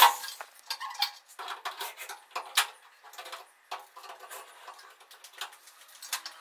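Irregular light clicks and taps of metal being handled overhead: the aluminium LED profile and its fittings knocked and clipped into place in the ceiling. A loud burst cuts off right at the start.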